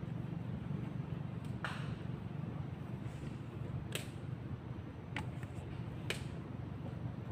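A few sharp taps and knocks on a wooden boat deck as a sea snake is handled and laid out under a knife, about four in all, over a steady low hum.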